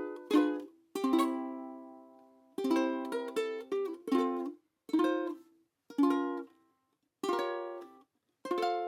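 Ukulele playing a short song in strummed chords: single strums and quick pairs, each chord left to ring and die away, with short pauses between them.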